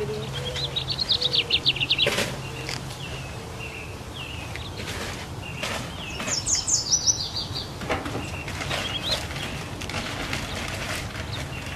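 Songbirds singing: a rapid trill of high notes about a second in, scattered short chirps, and a fast falling run of very high notes about six seconds in. A few sharp clicks or rustles sound among the birdsong.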